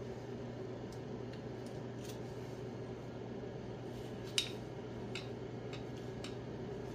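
A piston ring compressor being handled and fitted around a piston: a few light metallic clicks, with one sharper click about four and a half seconds in, over a steady hum.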